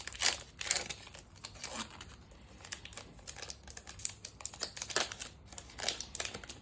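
Foil wrapper of a trading-card pack crinkling and tearing as it is opened, a string of irregular short crackles.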